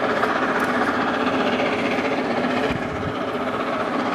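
LNER Peppercorn Class A1 three-cylinder Pacific steam locomotive 60163 Tornado approaching with a passenger train: a steady, even rushing sound with no separate exhaust beats.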